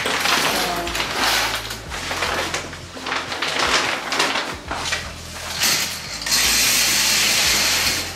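Repeated rough brushing strokes against a hard surface during bathroom cleaning, followed by a steady hiss for about two seconds near the end.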